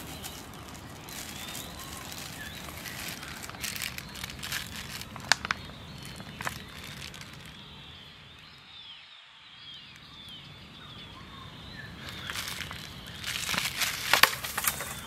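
Irregular crackling and rustling, with a dense, louder cluster of crackles near the end, over faint, repeated high chirps.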